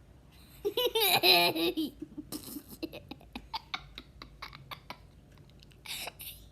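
A child laughing hard: a loud burst of wavering, pitched laughter about a second in, then a long run of short, breathy giggles.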